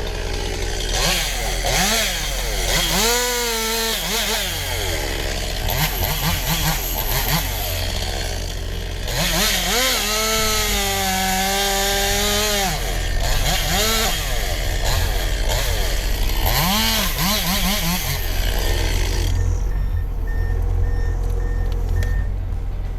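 Chainsaw repeatedly revving up and easing off as it cuts through pine, over a steady low drone. The high-pitched whine drops away near the end.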